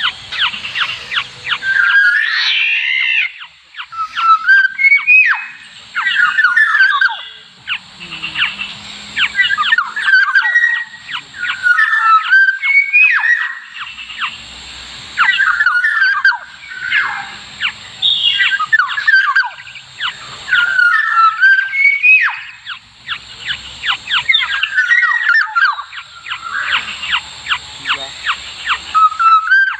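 Black-naped orioles calling over and over: short fluty whistles that rise and fall, among quick runs of harsh, rasping notes.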